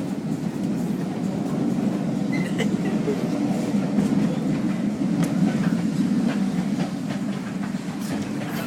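A moving train running steadily, a continuous low rumble with faint scattered clicks from the wheels on the track.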